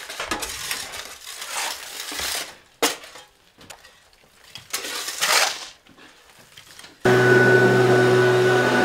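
Hand tools scraping and clinking through loose stone rubble in irregular strokes, with a sharp knock about three seconds in. About seven seconds in, a leaf blower cuts in suddenly and runs loud at a steady pitch.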